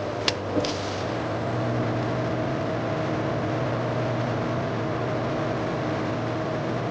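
Steady machine hum and whirr of factory processing equipment, with two sharp clicks in the first second.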